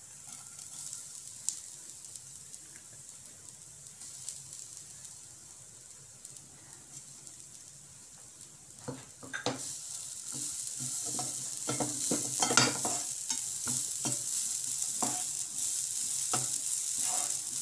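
Freshly ground coconut sizzling faintly as it dry-roasts in a non-stick frying pan. About nine seconds in, a slotted spatula starts stirring and scraping it around the pan in repeated strokes, and the sizzling grows louder.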